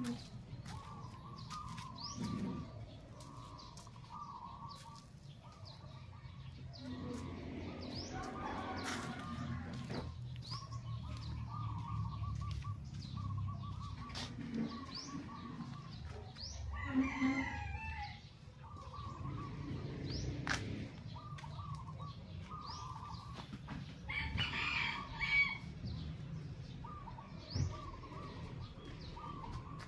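A rooster crowing several times, over repeated short chirps of small birds and a low steady rumble.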